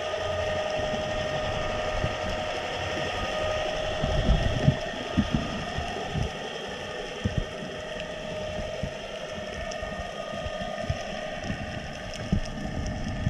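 Underwater recording: a steady mechanical hum with several constant pitches, with a few low thumps about four to seven seconds in.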